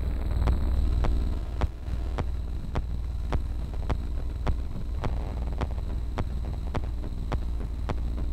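Modular synthesizer playing live electronic music: a steady deep bass drone with a sharp click pulsing evenly, a little under twice a second, and a thin high steady tone above.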